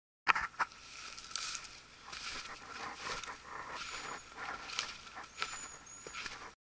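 Slow footsteps in wet snow with twigs and brush rustling and clicking, irregular soft crunches. A few faint short high whistles come in the second half.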